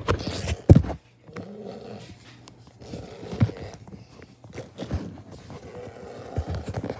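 Footsteps and handling knocks from a phone camera being carried quickly through a room, with a sharp thump just under a second in.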